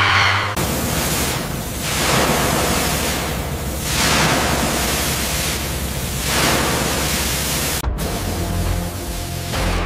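Loud steady hiss of spray from hose-fed spray wands, swelling and easing every second or two and cutting out briefly near the end, over background music with a low steady drone.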